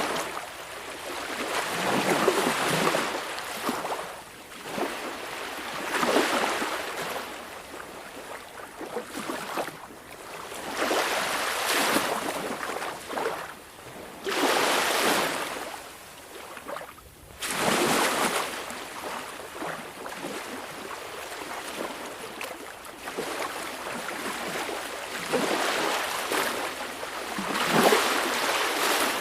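Small, calm sea waves washing onto the shore, each wash swelling up and falling away every few seconds.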